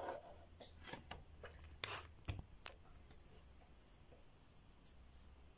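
Faint clicks and rubbing of small plastic toy figures being handled and set down, several light taps in the first three seconds, then near silence.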